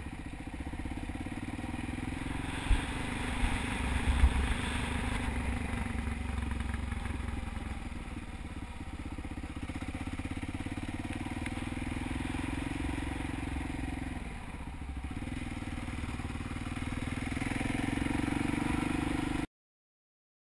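Honda XR650 supermoto's single-cylinder four-stroke engine running under way, its note rising and falling with the throttle. A few sharp thumps come about three to four seconds in, and the sound cuts off abruptly near the end.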